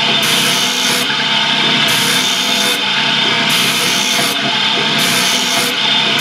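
Chevis bassoon cane gouging machine running and shaving a piece of cane, a steady machine hum under a wooden rasping that brightens and dulls roughly every second and a half.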